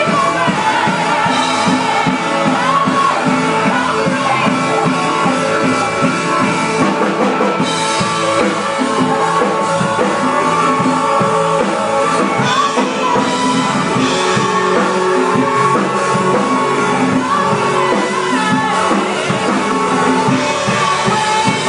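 Live gospel worship band playing a song at full volume, with drum kit, electric guitars and keyboard under voices singing.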